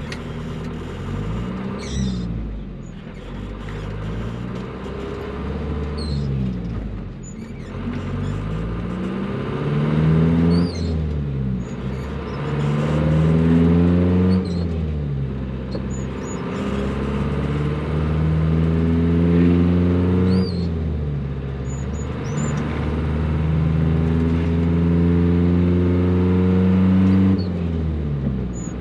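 A 1985 Mazda T3500 truck's small non-turbo engine, heard from inside the cab, accelerating through the gears: its pitch climbs steadily for several seconds, then drops sharply at each gear change, about five or six times.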